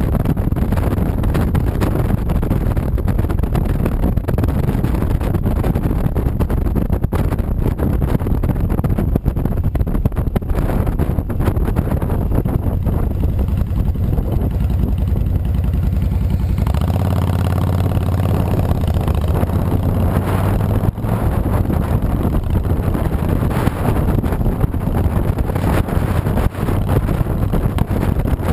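Honda VTX 1300C V-twin cruiser engine running under way, heavily masked by wind rushing over the microphone. A little over halfway through, the wind drops as the bike slows for traffic and the engine's low, even note comes through clearly. A few seconds later the wind noise builds again as it rides on.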